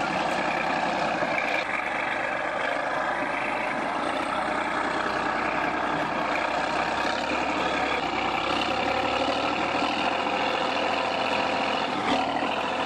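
T-11 crawler bulldozer's diesel engine running steadily under heavy load as the machine labours to climb out of an ice hole.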